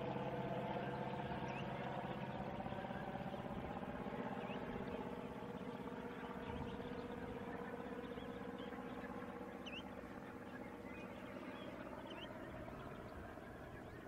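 A distant engine drones with several steady pitches that slowly shift and fade. Faint, short, high chirps of small shorebirds sound over it.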